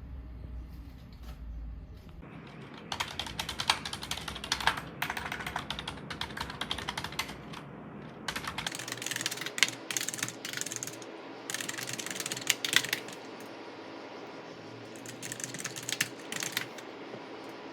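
Typing on a computer keyboard in several bursts of rapid key clicks, with short pauses between them.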